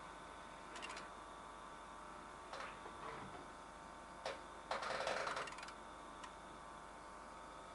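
Oscilloscope's cooling fan running with a steady hum, broken by several light clicks and a short, louder burst of clattering noise about five seconds in.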